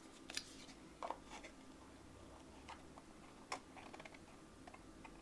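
Faint handling sounds of cardstock being folded and pressed: a handful of soft clicks and crinkles over quiet room tone.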